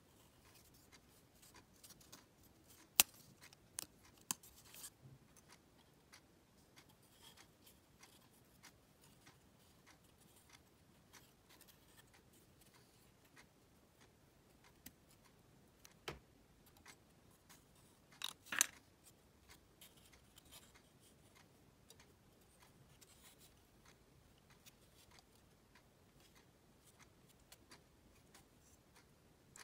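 Thin laser-cut plywood puzzle pieces clicking and tapping against each other as they are handled and pressed together. The clicks are sharp and scattered: the loudest comes about three seconds in, and a quick cluster comes a little past halfway.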